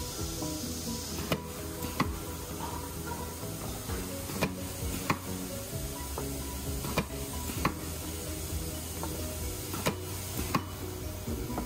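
Background music over a small press clacking shut and open on plastic cups, a sharp pair of clacks about every three seconds, with a steady low machine hum.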